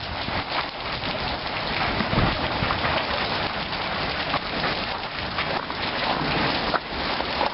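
Hail pelting down in a storm: a dense, steady clatter of countless small impacts.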